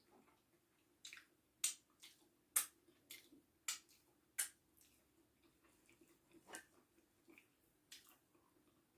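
A person eating amala and soup with the fingers: a series of quiet, wet mouth smacks and clicks from chewing and lip-smacking, about eight in all, most of them bunched in the first half.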